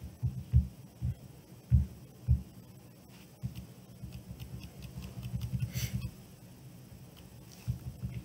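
Five dull low thumps in the first two and a half seconds, then a quicker run of softer low knocks over a faint steady hum.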